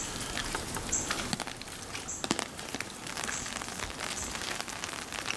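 Rain falling and dripping on the structure: a steady hiss with scattered sharp drips and ticks.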